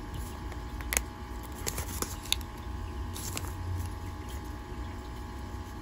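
Origami paper rustling and crackling as fingers fold and crease it, with a few short sharp crackles, the sharpest about a second in.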